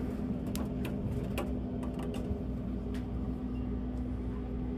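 Steady low hum inside an elevator car, with a few faint light clicks as the lower-level car button is pressed and lights up.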